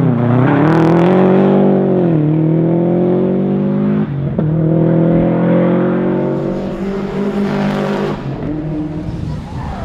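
Subaru WRX STI's turbocharged flat-four engine accelerating hard on a rally stage. The engine note rises, drops sharply at a quick gear change about two seconds in and again about four seconds in, climbs once more, then falls away as it comes off the throttle near the end.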